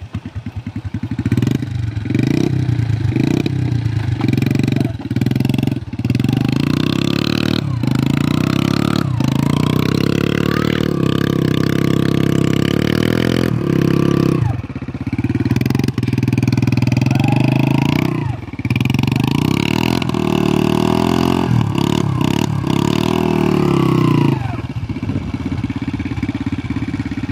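Small old step-through motorcycle engine starting up and then revving hard again and again, its pitch rising and falling with short drops, as the rear wheel spins in loose dirt while the bike is stuck. It falls to a lower, steadier run near the end.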